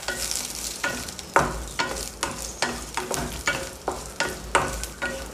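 Spatula stirring and scraping coconut pieces and green chillies in a steel kadai, over a light sizzle of frying in a little oil. The spatula hits the pan about two to three times a second, and each hit leaves the pan ringing briefly.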